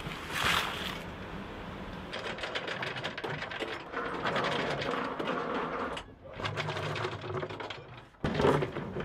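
Galvanised anchor chain clattering link by link as it runs out of a plastic drum and down into a boat's chain locker, a rapid steady rattle that breaks off briefly and starts again louder near the end.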